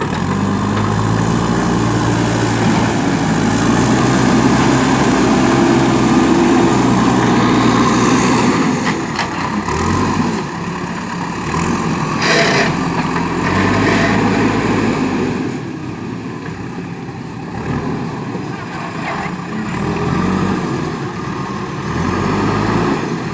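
JCB 3DX backhoe loader's diesel engine running under work, its revs rising and falling several times. There is a brief hiss about twelve seconds in.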